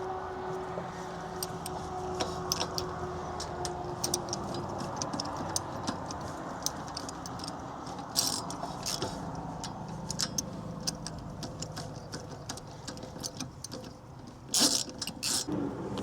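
Light metallic clicks and clinks of tools and axle parts being handled during hub reassembly, over a steady background hum. A louder cluster of knocks comes near the end.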